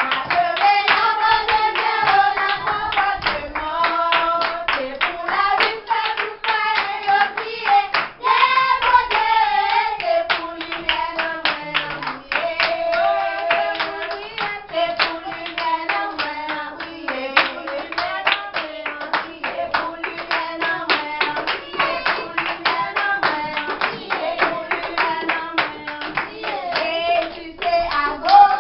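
Children singing a song together in unison, with steady rhythmic hand clapping throughout.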